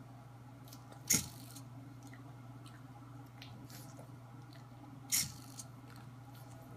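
Hobby servo of an Arduino pan/tilt camera mount stepping twice, about four seconds apart, each move a short mechanical sound, with faint ticks between the moves. A steady low hum runs underneath.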